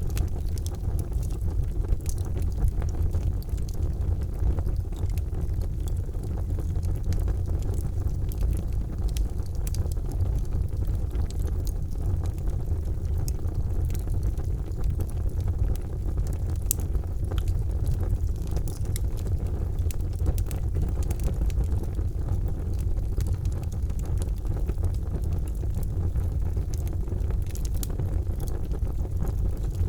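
Charcoal fire burning in a fireplace: a steady low rumble with scattered small crackles and pops.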